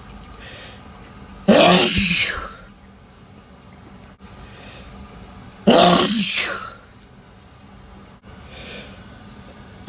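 A person sneezing loudly twice, about four seconds apart, each sneeze a sharp burst with a voiced cry that trails off within a second, over the steady hiss of a running shower.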